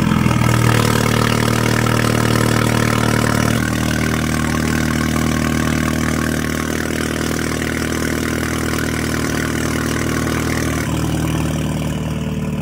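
Volkswagen GTI's 2.0 TSI turbocharged four-cylinder, just started and idling loud and steady through a homemade PVC straight-pipe exhaust. The tone changes abruptly about three and a half seconds in and again near the end.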